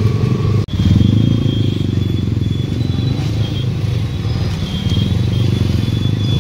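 KTM Duke 200's single-cylinder four-stroke engine running steadily while the motorcycle is ridden. The sound cuts out for a split second just under a second in.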